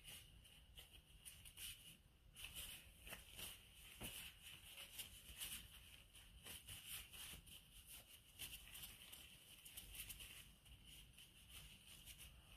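Quiet, irregular crinkling and soft clicks of disposable gloves squeezing and shaping cookie dough in a glass bowl, over a faint steady high-pitched hum.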